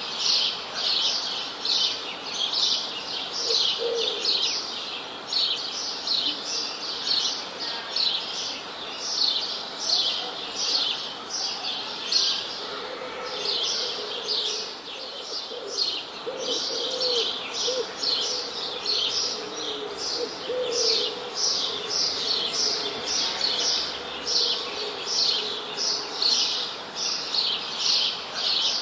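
Songbirds chirping continuously, short high chirps repeating a few times a second, with lower wavering calls joining through the middle.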